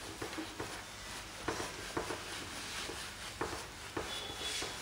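A whiteboard being wiped clean by hand: faint rubbing, with a few light knocks against the board.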